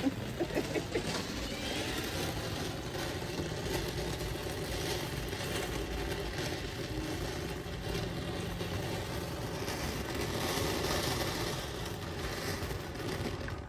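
Ground fountain firework ("Miss Glitter") spraying with a steady hiss and rumble, dying down near the end. It gives little visible sparkle.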